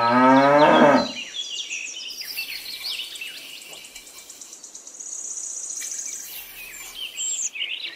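A cow mooing, its pitch rising, ending about a second in; then songbirds chirping, with a fast high trill midway.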